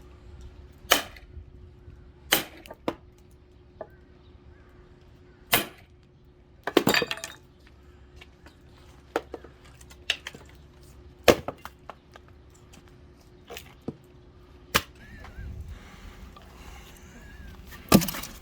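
Firewood being chopped: about a dozen sharp, irregular wooden chops and cracks, a second or more apart.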